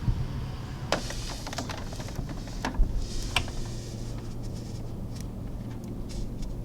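Scattered light clicks and knocks, a few sharper ones about a second in and around three seconds in, over a low steady hum.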